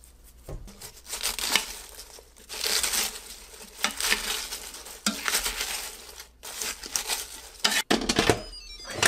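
Metal tongs tossing raw cabbage and onion pieces in a stainless steel pot: repeated crisp rustling strokes with scrapes against the metal. Near the end come a few sharp clicks as the pressure-cooker lid is set on.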